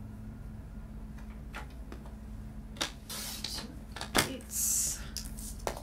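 Paper being slid and positioned on a paper trimmer, with a few light clicks and taps. About four and a half seconds in comes a sharp click, then a short hiss as the trimmer's blade slides down through patterned paper. A steady low hum runs underneath.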